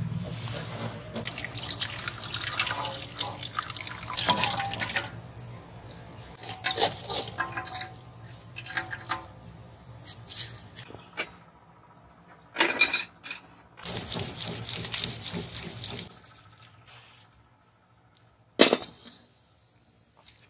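Coconut milk splashing and trickling into a steel bowl as grated coconut is squeezed by hand and the milk is strained through a wire-mesh sieve, in uneven wet bursts. A single sharp knock comes near the end.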